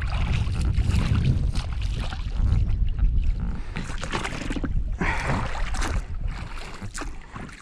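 Oars of an inflatable rowing boat splashing through choppy water stroke after stroke, with scattered knocks from the oars, over a steady low rumble of wind on the microphone.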